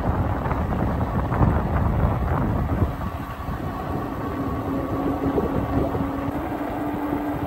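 Wind buffeting the microphone and tyre noise from an electric moped-style bike riding at about 17 mph. A steady motor whine joins about halfway through, the e-bike's hub motor pulling under throttle.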